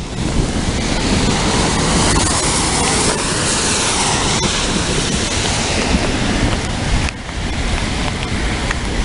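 Loud, steady rushing of thunderstorm wind and heavy rain, with wind buffeting the microphone. About three seconds in, a vehicle swishes past on the wet street.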